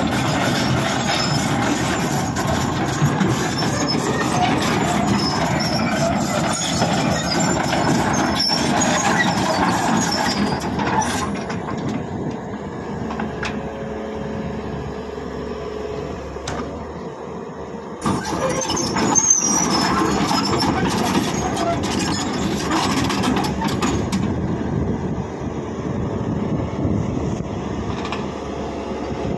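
Tracked excavator running as it is driven off a trailer truck, its engine, tracks and machinery clattering and squealing. The sound changes abruptly about two-thirds of the way through.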